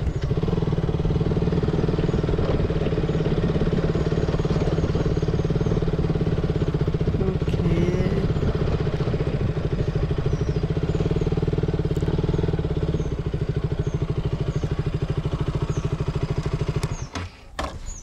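KTM Duke 200's single-cylinder four-stroke engine running steadily with an even, fast pulse. It drops a little about two-thirds of the way through, then stops abruptly near the end, followed by a few sharp knocks.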